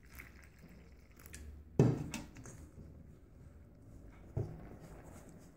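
Faint sounds of warm water being poured onto semolina and flour in a stainless steel bowl, then the batter being worked by hand. A sharp knock comes about two seconds in, and a softer one a little past four seconds.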